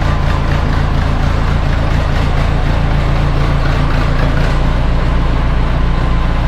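Heavy engine running steadily at a constant speed, its low note dropping slightly about four and a half seconds in.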